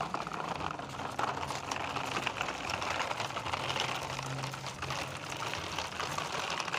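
Plastic toy truck pushed along the ground, its wheels rolling with a steady gritty rattle of small clicks.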